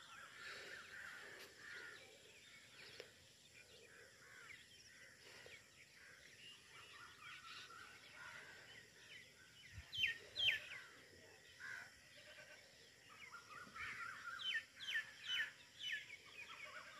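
Faint birds calling: scattered short chirps that sweep downward, a cluster about ten seconds in and a quicker run of them near the end.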